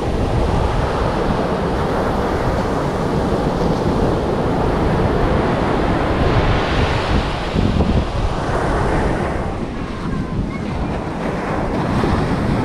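Ocean surf breaking and washing up over the sand in a steady rush that swells and eases with the waves, with wind buffeting the microphone.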